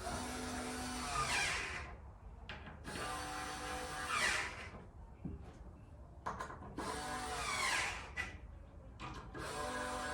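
A power screwdriver driving the hinge screws in four short runs, its pitch changing within each run.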